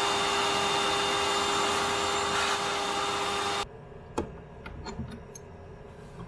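Vacuum running with a steady whine, its hose sucking wood chips off a freshly CNC-carved panel; it cuts off abruptly about three and a half seconds in. After that, a few light metallic clicks of a wrench on the desktop CNC's spindle collet nut as the end mill is changed.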